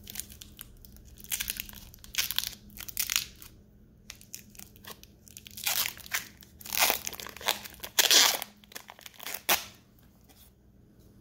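Clear plastic protective wrap being peeled and crinkled off a wristwatch, in a series of short crackling bursts, the loudest about eight seconds in.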